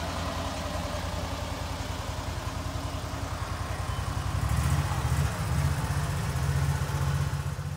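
Small utility-vehicle engine of a John Deere Gator running as it drives off, a steady low hum that gets louder about halfway through.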